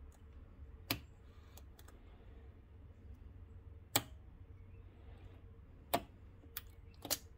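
A handful of small, sharp metallic clicks, spaced a second or more apart, as snap-ring pliers work a steel snap ring into its groove in a coilover shock's bearing eyelet.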